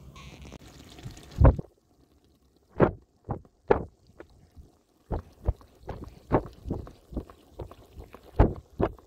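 Thick goulash simmering in a kettle cauldron, with large bubbles bursting at the surface in irregular soft plops, about one to three a second. The first second and a half holds only a faint steady hiss.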